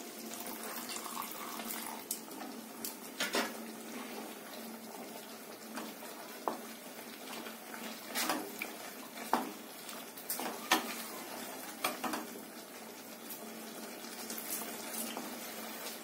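Milk poured into a kadhai of simmering paneer curry, then a spatula stirring the curry and knocking against the pan several times over a steady bubbling hiss.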